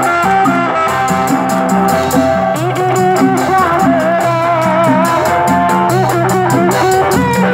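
Sundanese kuda renggong procession music: a wavering, ornamented melody line over drums and hanging gongs, with a fast, even beat of sharp high clashes, played through horn loudspeakers.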